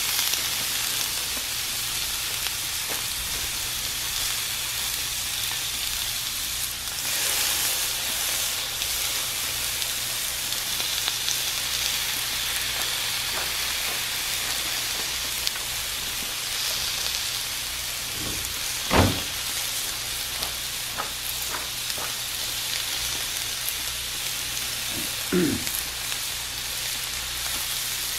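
Beaver meat sizzling in oil on a hot flat-top griddle, a steady frying hiss that swells briefly about a quarter of the way in. A short thump comes about two-thirds of the way through.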